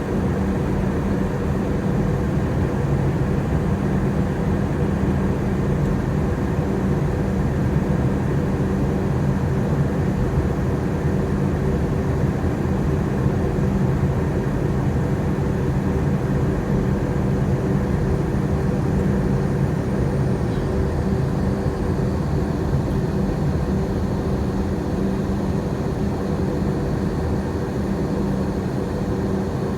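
Steady drone of an airplane in flight heard from inside the cabin: engine and airflow noise with a constant low hum that does not change.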